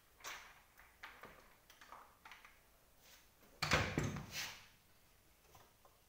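Knocks and clatter of an executive chair's five-star base being lifted and handled against the chair seat, with a heavier thud about three and a half seconds in as it is set down onto the seat.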